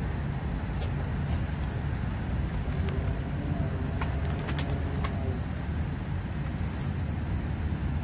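Rustling and small sharp clicks as a leather seat cover with its zipper and fittings is handled and shifted, over a steady low background rumble.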